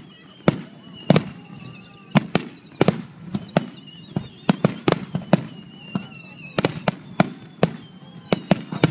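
Aerial fireworks shells bursting in quick, irregular succession: about twenty sharp bangs, two or three a second. A thin, wavering high whistle runs beneath them.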